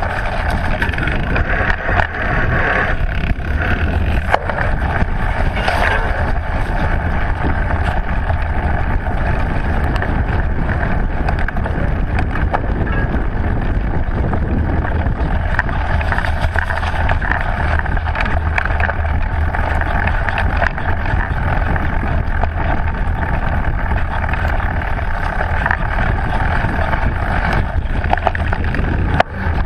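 A mountain bike's tyres running over a dirt forest trail, heard under steady wind noise on the bike-mounted microphone, with frequent small knocks and rattles as the bike hits bumps.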